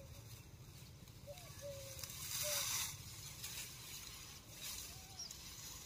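Faint rustling of dry crop stalks being gathered up by hand, with a louder rustle about two to three seconds in, over a low steady rumble. A few faint bird chirps.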